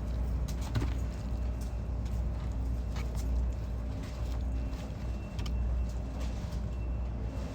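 Close-up eating sounds: chewing with scattered sharp clicks from food and utensils, over a steady low hum.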